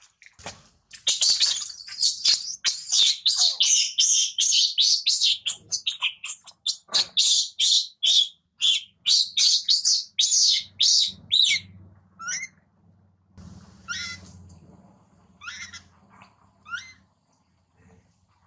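Infant long-tailed macaque screaming in distress during weaning: a fast, unbroken string of loud, shrill screams for about ten seconds, then fewer and shorter cries that fall in pitch.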